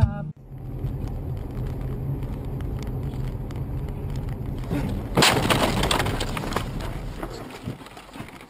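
Steady engine and road noise heard from inside a car on a snowy road. About five seconds in comes a sudden loud crash with cracking and breaking, lasting a second or so, as the car meets a snowplow's blade and is covered in snow.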